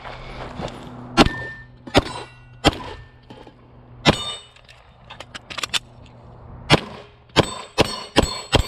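Glock 34 9mm pistol firing about nine shots at uneven spacing, with a quick string of shots close together near the end. Steel targets clang and ring briefly after some of the hits.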